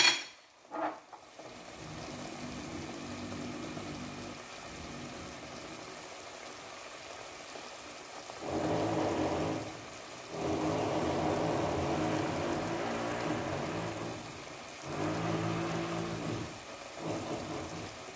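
Beef stew bubbling and simmering in a pot on a gas burner: a steady, rain-like bubbling that swells louder three times in the second half.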